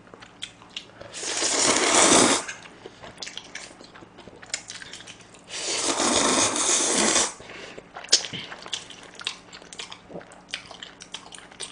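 Person slurping instant black-bean-sauce stir-fried noodles: two long, loud slurps about four seconds apart, then chewing with small wet mouth clicks.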